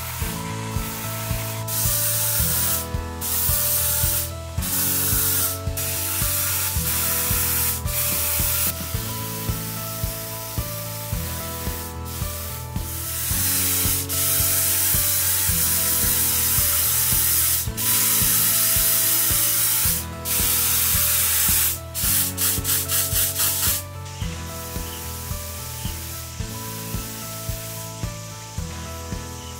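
Compressed-air spray gun hissing in bursts, some a second long and some several seconds, with a run of quick short bursts about three-quarters of the way in, over background music.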